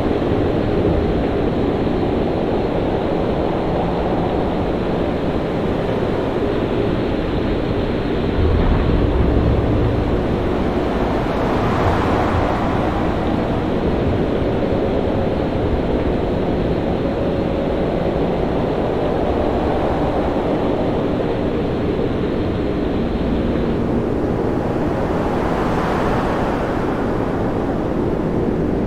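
Storm at sea: heavy waves and wind in a steady, dense rush of noise. A deeper rumble swells around nine seconds in, and waves surge and break twice, about twelve and twenty-six seconds in.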